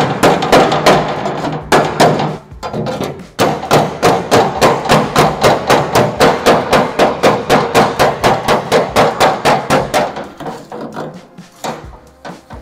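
Steel body hammer striking the wrinkled, turned-in flange of a steel car hood over a hand-held dolly, to hammer the wrinkles out. The sharp metal blows come fast and even, about four or five a second, with a short pause early on, and they thin out near the end.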